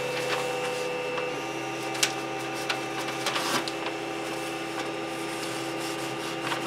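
Creality Ender 6 3D printer humming steadily with several held tones while in its bed-levelling routine. A few light clicks and rubbing come from the bed-levelling knob being turned by hand.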